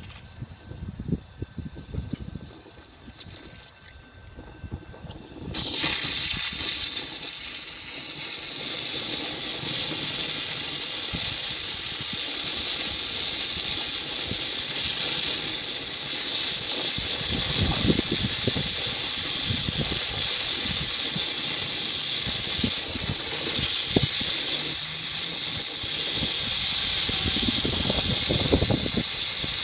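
Brazing torch flame hissing steadily while the copper discharge line is brazed onto a new heat-pump reversing valve. The hiss comes up about five seconds in and holds.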